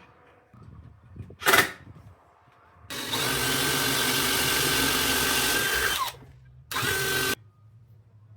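Electric drill run in three trigger pulls: a brief blip, then a steady run of about three seconds that slows as it is released, then a shorter burst near the end.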